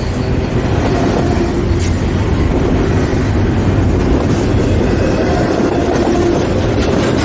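CSX freight train rolling past close by: a steady, loud rumble of steel wheels on the rails, with a few sharp clicks.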